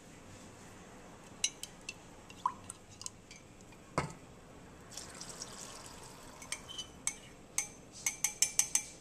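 A few light clinks and a knock, then cornstarch slurry poured into a metal saucepan of sauce, with a wire whisk clicking quickly against the pan near the end.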